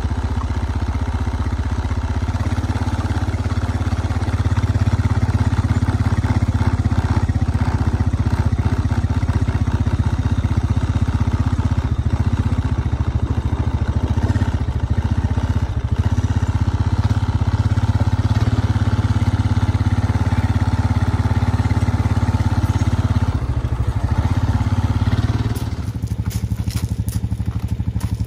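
Engine of a slow-moving vehicle running steadily with a low, even hum. Near the end the sound changes and a series of sharp clatters and knocks comes in.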